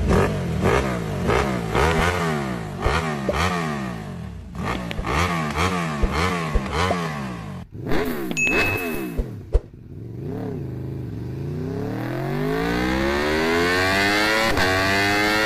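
Car engines revving: a run of quick rev blips, the pitch rising and falling about twice a second, then after a short break one engine revs up in a long, steady climb and holds at high revs.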